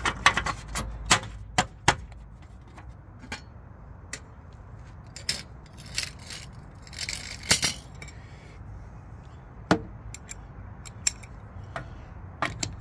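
Sharp clicks and knocks of a plastic hubcap being fitted over a steel wheel's lug nuts, a quick run of clicks in the first two seconds, then scattered single clicks with a brief rustle about seven seconds in.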